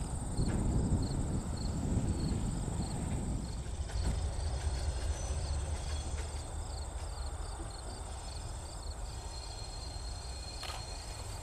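Crickets chirping in a steady pulse, about two to three high chirps a second, over a continuous high insect trill. Beneath them is a low rumble that is heavier for the first few seconds.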